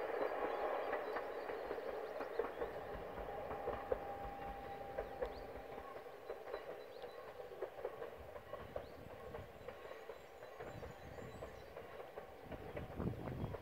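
Koleje Śląskie Elf (EN76) electric multiple unit running along the line at a distance: a steady rail rumble with wheel clicks, fading gradually as the train moves away.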